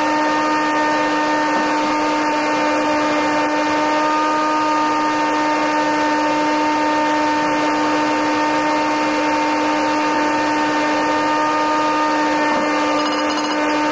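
A motor running at a steady speed, giving a constant pitched hum over a rushing noise; no hammer strikes are heard.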